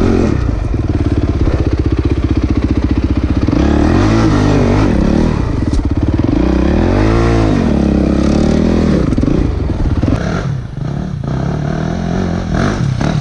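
Dirt bike engine running close up, revved twice about four and seven seconds in, its pitch rising and falling each time, with a few knocks near the end.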